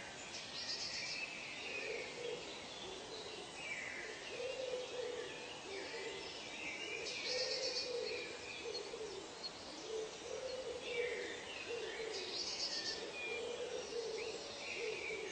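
Wild birds in a tropical forest: a low hooting call repeats about once a second, with higher chirping calls over it and a short high trill three times, about five seconds apart, over a steady background hiss.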